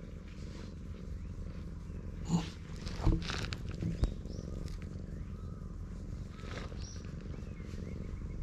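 Tabby cat purring steadily while being stroked, a low continuous rumble close to the microphone, a sign the cat is content. A few brief scuffs sound around the middle.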